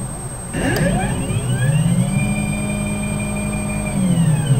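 CNC gantry's stepper motors whining as the machine moves its weaving head. The whine starts with a short clack about half a second in, rises in pitch as the head speeds up, holds steady, then falls as it slows near the end.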